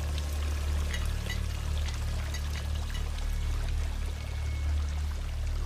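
Water pouring steadily into a flooded basement, with scattered drips and small splashes, over a deep, steady low drone.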